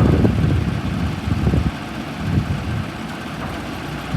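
Case 580 Super N backhoe's diesel engine running, louder for the first second and a half and then settling to a steadier, lower level.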